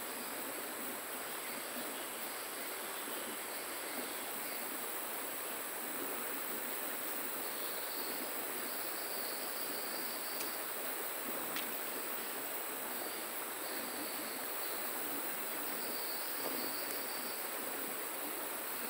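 Steady rush of flowing river water, with a constant high-pitched insect drone and a fainter insect trill that comes and goes above it.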